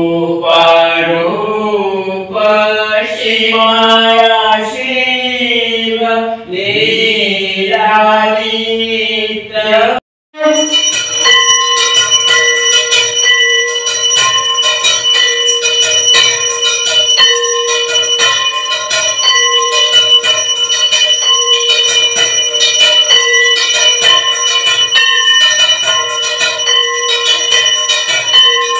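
Voices singing a devotional chant. About ten seconds in it breaks off and an arati hand bell takes over, rung continuously in a fast, steady ringing during the evening worship.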